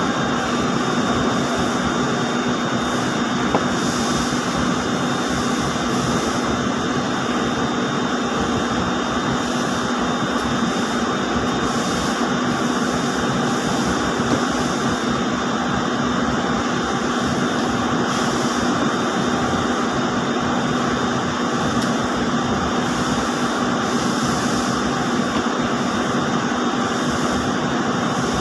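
Steady machinery drone of ring spinning frames running in a textile mill, with a constant hum underneath.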